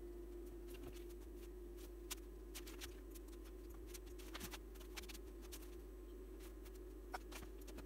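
Siglent SDS804X HD oscilloscope running its self-calibration: a faint steady hum with scattered faint clicks at irregular intervals.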